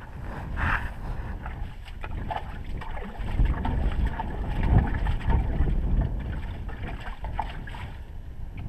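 Wind buffeting the microphone, a fluctuating low rumble that rises and falls in gusts.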